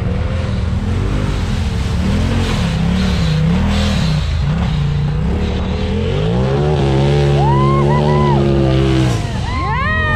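Turbocharged side-by-side UTV engine revving up and down repeatedly, then held at high revs for about three seconds. It drops off briefly about nine seconds in and revs sharply up again.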